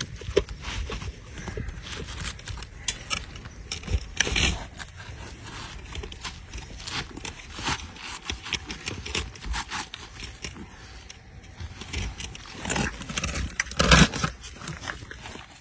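Asphalt roofing shingles being handled and worked into place: irregular scraping and rustling with scattered clicks, and louder knocks about four seconds in and near the end.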